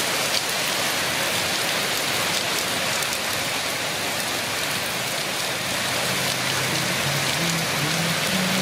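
Steady rain falling, an even hiss at a constant level.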